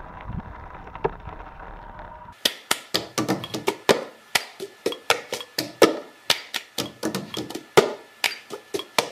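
Faint open-air ambience with a thin steady tone, cut off about two seconds in by a fast, irregular run of sharp clicks and knocks, several each second, each with a short ring.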